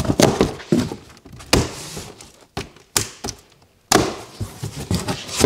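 Cardboard box being opened by hand: the flaps pulled apart and knocked, giving a string of sharp thunks and scraping sounds with a short pause near the middle.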